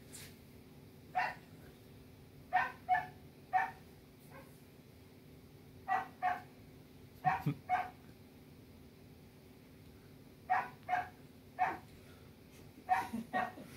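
A dog barking in the background, short excited barks in clusters of two or three, repeated every few seconds.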